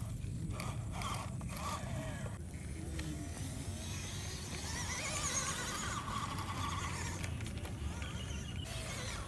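Electric motor and gearbox of an MN99S RC crawler running, a whine that rises and falls in pitch with the throttle over a steady low hum, with a few clicks near the start.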